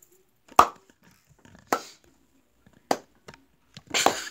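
Three sharp knocks about a second apart, a fainter fourth one, then a short noisy burst near the end.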